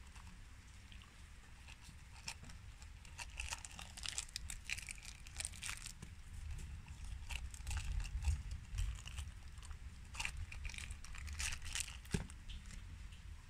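Unboxing handling noises: crinkling and rustling with many small clicks as JBL Dive earphones are pulled out of their grey rubber case and packaging, over a faint low rumble.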